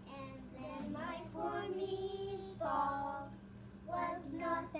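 Children singing a song, with held notes, over a steady low hum.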